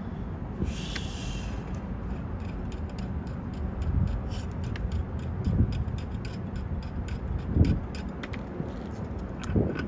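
Small metal clicks, scrapes and a few knocks as the nut and washer are turned off the grinding-wheel shaft of a Black & Decker 4300 drill bit sharpener by hand, over a steady low rumble.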